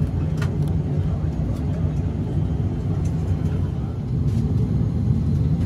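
Steady low rumble of an ATR 72-600's passenger cabin, with a couple of faint clicks in the first half second.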